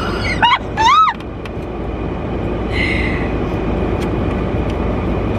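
Steady low rumble of a car running, heard inside the cabin, with two short high-pitched rising-and-falling squeals in the first second.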